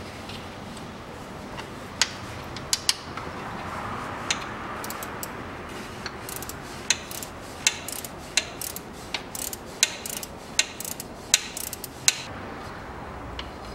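Ratchet wrench clicking in short, irregular strokes as the oil fill plug of a transfer case is screwed in and tightened. The clicks start about two seconds in and stop about two seconds before the end.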